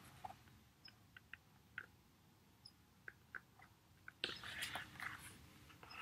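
Near-quiet room with a few faint scattered taps, then a soft rustle of a hardcover picture book and hands being moved about four seconds in.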